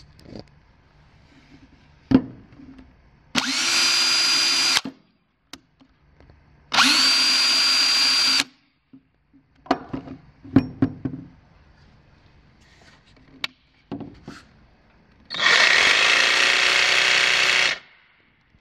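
DeWalt 18-volt cordless hammer drill run with no load in short trigger pulls, each a second or two of high motor whine that rises briefly as it spins up. Clicks and knocks of the tool being handled come in between, and near the end a longer run of about two and a half seconds from a DeWalt cordless tool.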